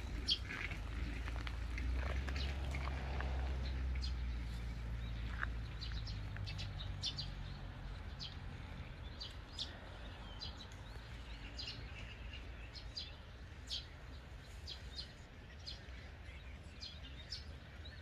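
Small songbirds chirping, with short high calls scattered throughout. A low rumble lies underneath for the first several seconds and then fades.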